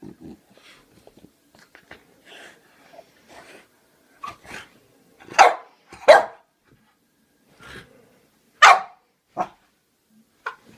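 French bulldog barking at a toy clown held up to it: a few quiet short sounds, then four loud sharp barks, two close together about halfway through and two more near the end.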